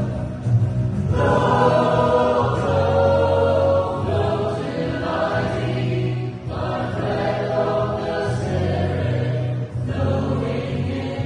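Choir singing a hymn with instrumental accompaniment, in phrases of a few seconds with short breaths between them.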